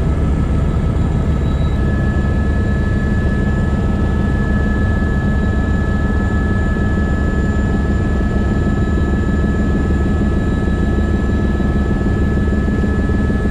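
Helicopter cabin noise in flight: a steady, loud drone of rotor and engine with a thin high whine over it, which grows stronger about two seconds in.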